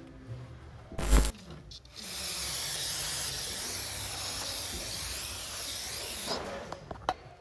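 A heavy thump about a second in, then an aerosol can spraying onto a crankshaft pulley in one steady hiss lasting about four seconds.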